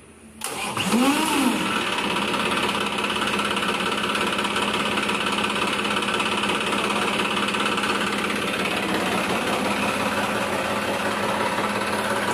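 Tafe 9500 tractor's 58 hp turbo diesel engine starting about half a second in, its revs rising and falling once as it catches, then settling into a steady idle.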